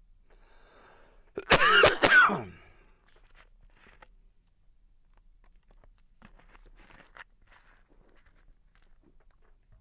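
A man coughing twice in quick succession, about a second and a half in. A few faint clicks follow.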